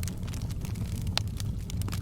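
Wood fire crackling in a fireplace: scattered sharp pops and snaps over a steady low rumble, with one louder pop about a second in.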